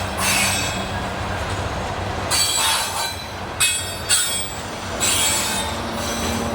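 Freight train of covered grain hopper cars rolling slowly by, steel wheels squealing on the rails in repeated high-pitched bursts over a steady low rumble, with two sharper squeals about midway.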